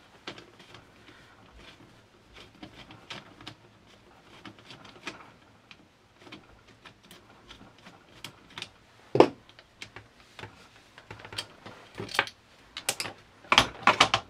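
Small metallic clicks and ticks of a screwdriver turning a screw out of a Lee-Enfield SMLE rifle's steel fittings. There is one sharper click about nine seconds in, and a flurry of louder clicks near the end as the loosened metal part is handled off the rifle.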